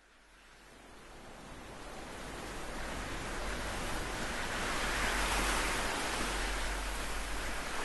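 Ocean waves breaking on a shore, fading in from silence and swelling to their loudest about five seconds in.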